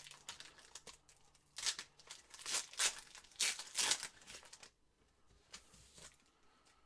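Trading card pack wrapper being torn open and crinkled, with a run of loud rustling and tearing bursts in the first half, fading to faint rustling near the end.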